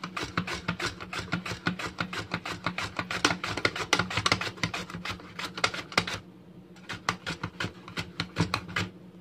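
Peeled raw plantain pushed rapidly back and forth over the steel blade of a plastic mandoline slicer set thin for chips, each stroke a short rasping scrape, about five a second. The strokes pause briefly about six seconds in, then resume.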